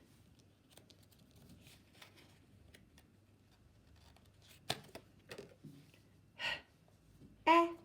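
Quiet small room with faint rustling and a sharp click a little under five seconds in, then near the end a woman's voice giving short, separate sounds: a breathy one and then a brief voiced one, the kind of single letter sounds said when blending a word.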